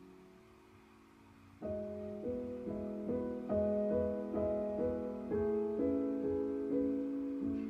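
Soft instrumental background music: a chord dies away, then about one and a half seconds in a slow, gentle melody of single struck notes begins.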